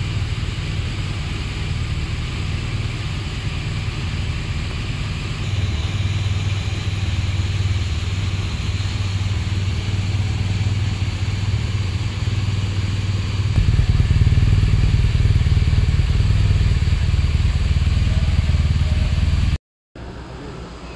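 BMW R1200GS Adventure's liquid-cooled 1170 cc boxer twin idling steadily, getting louder and deeper about two thirds of the way through. The engine sound cuts off abruptly about a second before the end.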